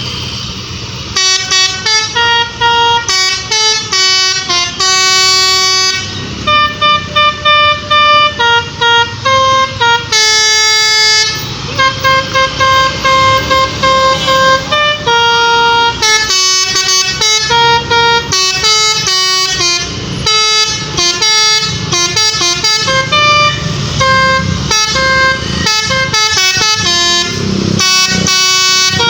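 Tour bus's basuri telolet horn playing a tune on its set of multi-tone air horns, starting about a second in. It runs through quick staccato notes and a few longer held chords.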